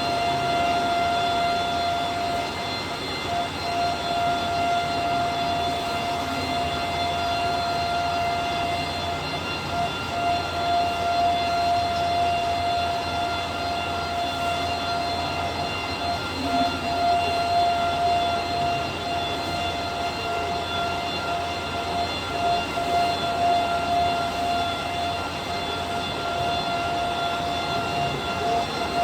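Bacci T4MO CNC wood-machining centre running. It makes a steady high whine with a row of overtones over a constant rushing machining noise.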